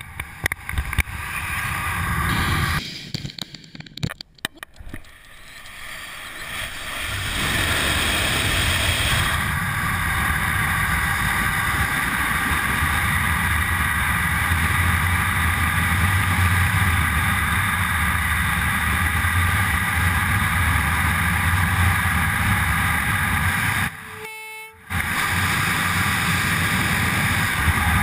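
Wind rushing over a helmet-mounted camera as a wingsuit gathers airspeed after leaving a cliff: it builds over the first several seconds into a loud, steady rush with a low rumble and a whistling hum of steady tones. It cuts out briefly near the end.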